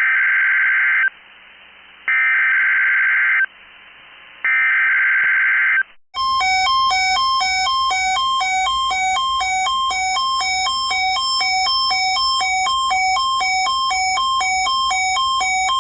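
NOAA Weather Radio SAME alert signal for the weekly test: three raspy digital data bursts, each about a second long with a second's pause between them. Then, from about six seconds in, a loud alert tone that alternates between two pitches a couple of times a second.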